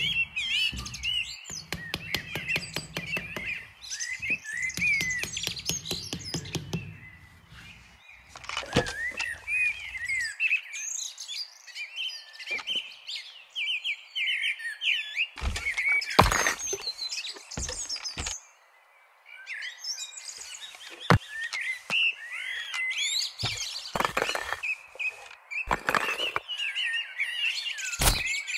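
Small birds chirping continuously, with a rapid scraping rattle for the first several seconds and scattered sharp knocks later as wooden sticks and fence pieces are pushed and set into sand.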